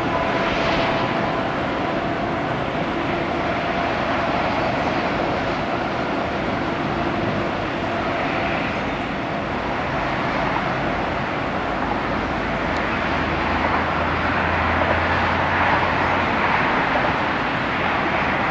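Freight train of container wagons rolling along the mountain line at a distance, a steady rolling noise of wheels on rails.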